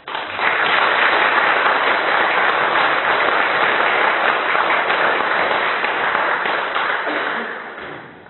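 Audience applauding, starting suddenly and dying away over the last second or so.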